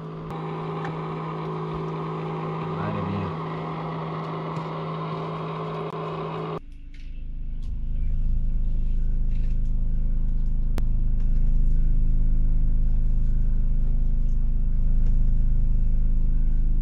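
A boat engine running steadily, first with a steady hum, then, about six and a half seconds in, a louder and deeper rumble as heard from inside the cabin.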